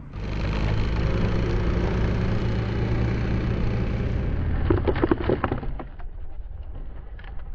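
Cycloplane's belt-driven cyclorotors running loud and rough at high power, cutting off after about four and a half seconds. About five seconds in comes a quick run of sharp knocks and clatter as the rotors break apart and the airframe tumbles on the asphalt, followed by a few small scattered clicks.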